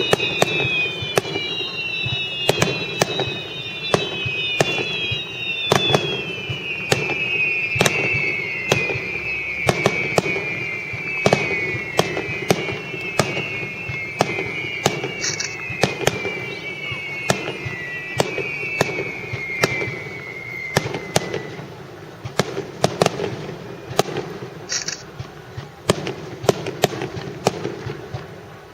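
Fireworks finale: a rapid barrage of shells bursting with sharp bangs, overlapped by many whistles falling in pitch for most of the first twenty seconds. The bangs thin out and grow quieter toward the end.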